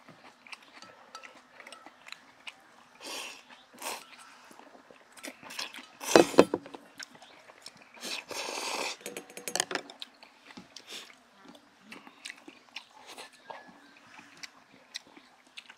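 People eating noodles in broth: slurping and chewing, with small clicks of chopsticks against stainless steel bowls. The loudest sound comes about six seconds in, and a longer slurp of about a second and a half follows around eight seconds in.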